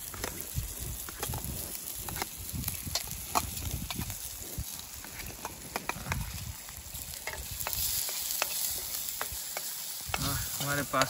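Desi ghee tadka sizzling in a pan as it is stirred, with a spoon clicking against the pan every so often.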